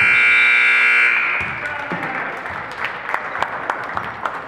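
Basketball scoreboard buzzer sounding a loud, steady, harsh tone that cuts off about a second in, followed by scattered sharp knocks over the murmur of the gym.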